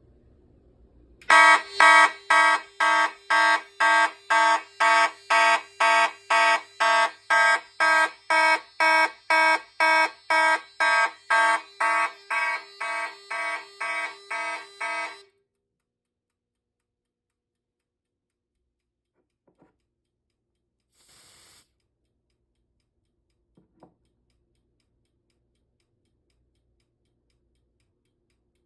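Simplex fire alarm horns sounding in even buzzy pulses, about two a second. The pulses start about a second in, fade a little, and cut off suddenly about halfway through. A short hiss and a couple of faint clicks follow.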